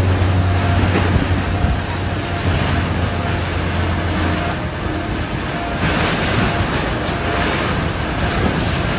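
Typhoon wind and surging waves, a continuous loud roar that swells and eases, with wind buffeting the microphone as a deep rumble.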